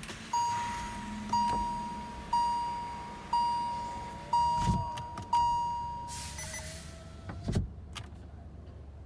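Car's warning chime dinging six times, about once a second, each ding sharp and fading, with a couple of sharp knocks along the way.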